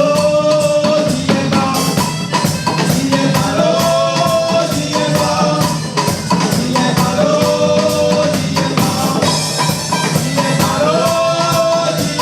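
Music with a busy percussion beat and a melodic phrase that repeats about every three and a half seconds.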